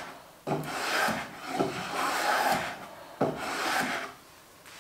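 Small hand plane being pushed along the edge of a wooden drawer front in three strokes of about a second each, taking very fine shavings to true up the edge.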